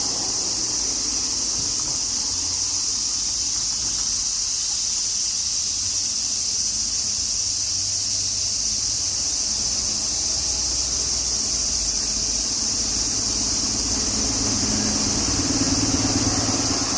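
Chorus of cicadas buzzing steadily in a dense, high-pitched drone, over a low rumble, like distant traffic, that swells near the end.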